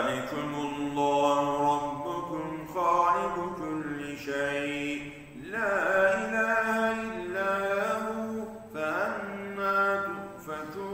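A man reciting the Quran in Arabic in a slow, melodic chant, holding long notes, with brief breaths between phrases.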